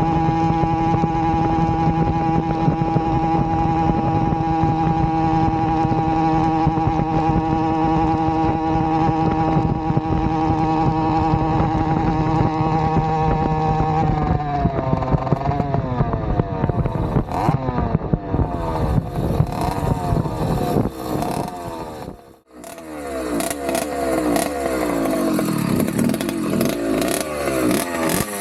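Avenger 85 two-stroke bicycle engine with an expansion-chamber exhaust, running under way at a steady high pitch for about fourteen seconds. Its revs then fall and rise again and again as it slows and picks up. The sound drops away briefly a little after twenty seconds, then comes back with changing revs and a rushing noise.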